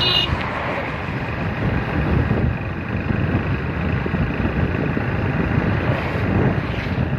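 Suzuki motorcycle riding at road speed: the engine running steadily under heavy wind buffeting on the microphone.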